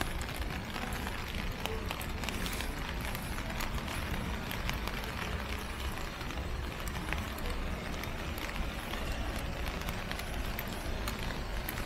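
Steady rain falling on a wet street, with many scattered sharp drop ticks over an even hiss and a low rumble underneath.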